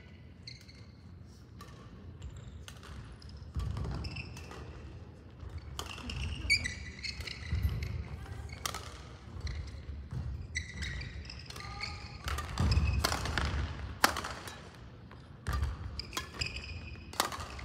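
Badminton rally: rackets striking the shuttlecock, sneakers squeaking on the court floor and footsteps thudding, repeated throughout.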